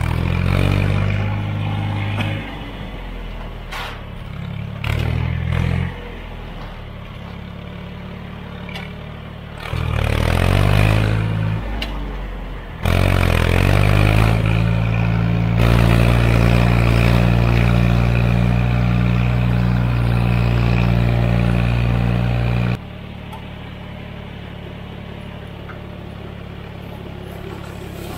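John Deere 1020 tractor's three-cylinder engine running as the tractor drives, getting louder and softer in stretches, with a long steady loud stretch in the middle and a quieter run near the end.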